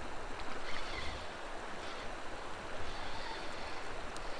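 Steady rush of a shallow river flowing over gravel, with wind buffeting the microphone in uneven low rumbles.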